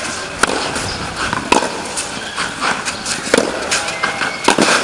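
Tennis ball being struck by rackets and bouncing on a clay court in a rally: four sharp pops, a second or more apart, over a steady hiss.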